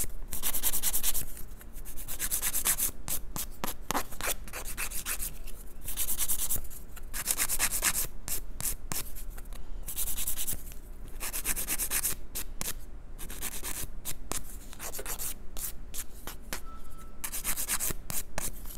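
White hand nail file rasping back and forth across the fingernail tips, filing the free edge into a sharper, pointed almond shape. The strokes come in short quick runs with brief pauses between them.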